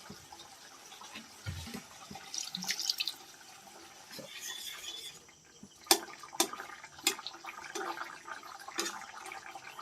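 Tomato-chilli paste cooking in an oiled kadai with a soft bubbling sizzle, stirred with a spatula that knocks sharply on the pan several times in the second half.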